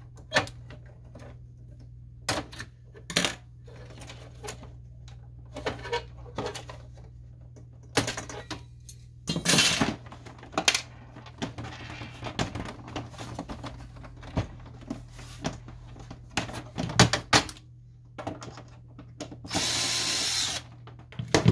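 Clicks, knocks and rattles of plastic and sheet-metal printer parts being handled, with a sharp snip near the start. Near the end a cordless power screwdriver runs for about a second and a half, driving a screw in the printer's chassis.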